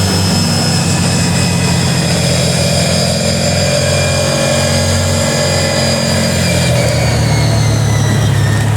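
ATV engine running steadily under way, its note shifting slightly about seven seconds in.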